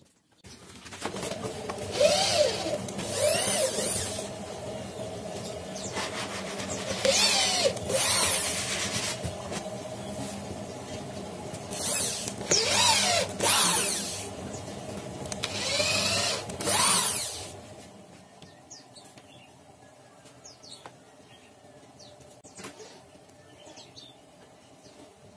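Red corded electric drill driving screws into plywood drawers in several short bursts, its motor pitch rising and falling with each one, over a steady hum. After about 18 seconds the drilling stops, leaving faint clicks.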